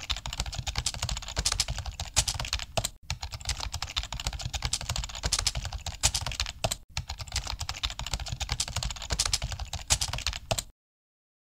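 Rapid computer-keyboard typing: a dense, even run of key clicks that breaks off briefly twice, then stops abruptly near the end.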